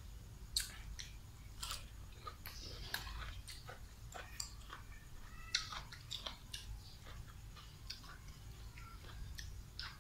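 A person eating catfish by hand: close chewing and wet smacking mouth sounds, made of many small irregular clicks.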